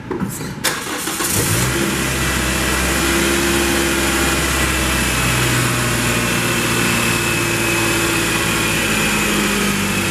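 Toyota 1ZR 1.6-litre four-cylinder petrol engine starting up: it catches within the first second or two with a brief rise in revs, then settles into a steady, stable idle.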